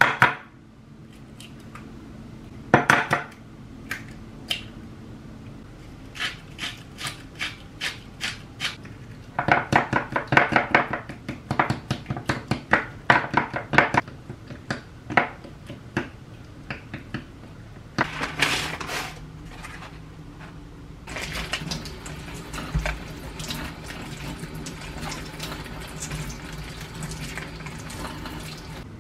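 Eggs cracked on the rim of a glass bowl with two sharp knocks, then a wooden utensil clicking quickly against the glass as egg and minced pork are stirred together. Near the end a kitchen tap runs steadily over hands into a stainless steel sink.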